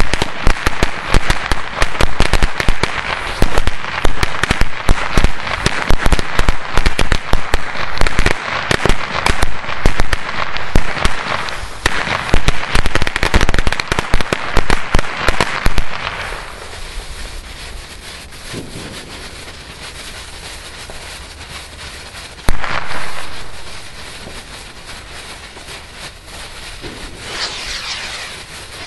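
A 300-piece, one-metre firecracker chain with a strobe effect going off: a dense, rapid string of loud bangs for about sixteen seconds. It then falls to a quieter, steady crackle, with one sharp bang a little past the middle and a rise again near the end.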